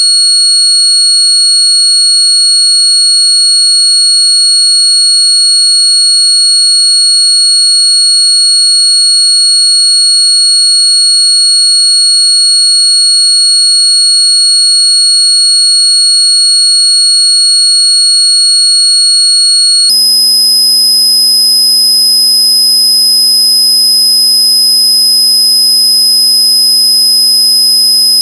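Loud, steady electronic tones: a high-pitched whistle with a few overtones that switches abruptly about 20 seconds in to a lower, buzzier tone with many overtones and a shrill whistle on top.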